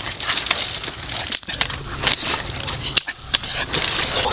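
Dry twigs being snapped and laid between hearth stones to build a fire: a run of sharp cracks and rustles.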